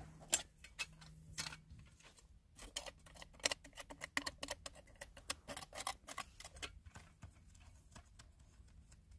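Small rocks and gravel clicking and scraping as a hand pick and gloved fingers dig into rocky dirt. The clicks come in a quick, irregular run that thins out over the last couple of seconds. A faint low hum runs underneath for the first two seconds.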